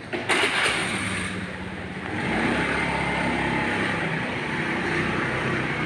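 A short burst of loud rustling near the start, then a motor vehicle's engine running steadily from about two seconds in.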